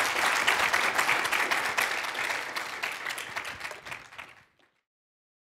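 Audience applauding, the clapping fading away and ending about four and a half seconds in.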